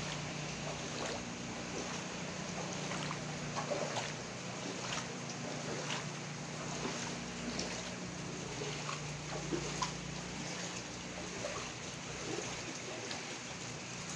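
Bare feet splashing step after step through shallow floodwater on a paved floor, over a steady hiss of heavy rain.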